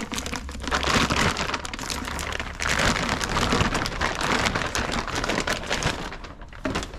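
Plastic packaging crinkling and rustling as it is handled, a dense run of small crackles throughout.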